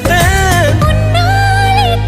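Background music: a Tamil film song with a sung melody over a steady bass line.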